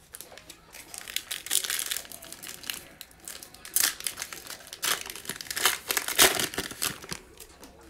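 Foil wrapper of a 2019-20 Panini Illusions basketball card pack crinkling and tearing as it is ripped open by hand. A run of sharp, irregular crackles starts about a second in, with the loudest a couple of seconds before the end.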